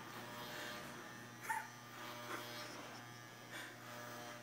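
Electric hair clippers buzzing faintly and steadily as they cut a man's hair.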